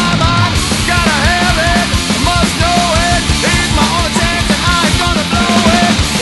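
Loud rock music with a sung or lead melody over a driving beat.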